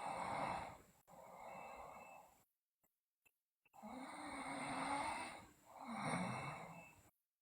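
A sleeping girl's heavy breathing: slow, noisy breaths in and out, one of them with a low snoring buzz, separated by silent pauses.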